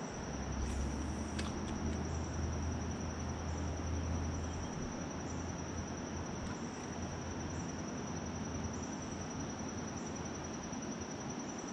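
Insects trilling steadily on one high note over a constant hiss. A low rumble runs for the first few seconds, and there is a single sharp click about a second and a half in.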